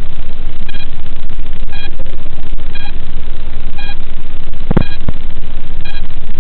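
Loud, steady static hiss on the analog FPV video link's audio channel, with a short electronic beep about once a second and a single dull thump about three-quarters of the way through.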